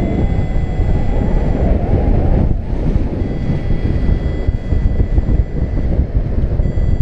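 Airflow hitting an action camera's microphone in paraglider flight: loud, steady wind noise, heaviest in the low range, with a brief dip about two and a half seconds in.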